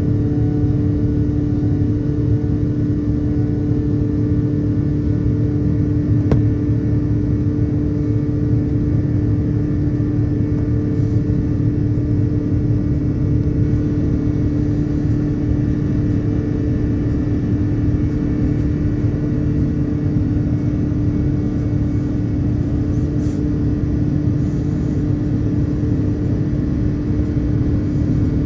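Steady cabin drone of an Airbus A330-900neo climbing out after takeoff, its Rolls-Royce Trent 7000 engines and the airflow giving an even rush with a constant low hum underneath.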